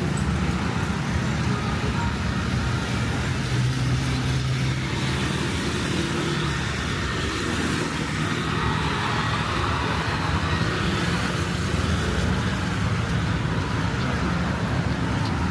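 Steady road traffic: vehicle engines running close by, with a low engine hum throughout.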